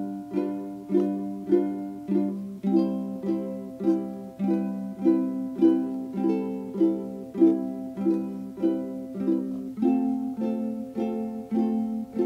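Background music: a plucked string instrument playing a light, even tune of about two notes a second.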